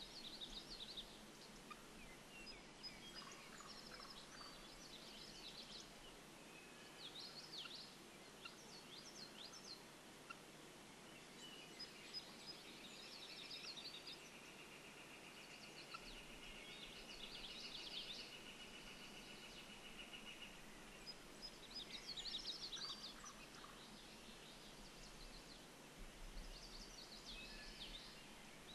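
Faint, distant wild turkey gobbling, repeated every few seconds. In the middle comes a long, even trill lasting several seconds.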